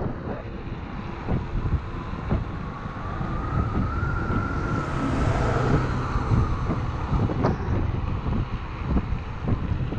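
Wind buffeting the microphone and road rumble while riding an electric scooter at speed, with frequent small knocks from bumps. A whine rises and falls around the middle.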